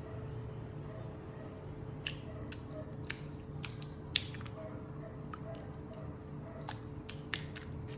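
Scattered small wet clicks and squishes of a watery mixture being stirred and handled, one sharper click about four seconds in, over a steady low hum.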